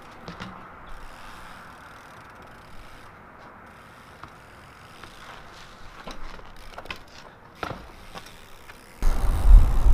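Trials bike hopping on concrete steps: a few light taps and clicks from the tyres and frame over a quiet background. A loud low rumble starts about a second before the end.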